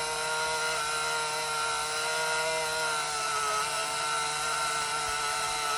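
Small electric motor inside a Canon Sure Shot 35mm camera running with a steady whine, its pitch wavering slightly.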